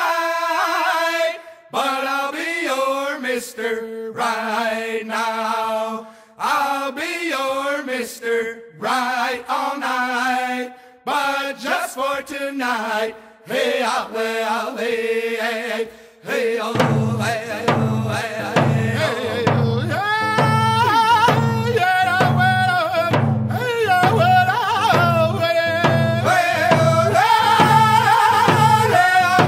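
Round dance song: singing that is unaccompanied at first, with short breaks between phrases. About 17 seconds in, a steady hand-drum beat comes in under the voices and carries on.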